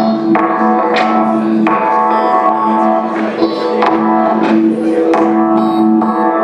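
Live instrumental music: a steady two-note drone held underneath, with a fresh note attack about once a second ringing over it.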